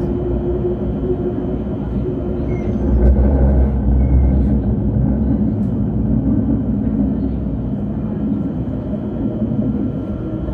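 Citadis tram heard from inside while running along its track: a steady rumble of the running gear, swelling a little about three seconds in.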